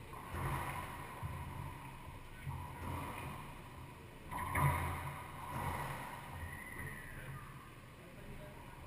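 Racquetball rally: a few sharp cracks of racquet hitting ball and ball hitting the walls, the loudest about halfway through, echoing around the enclosed court over the players' footsteps.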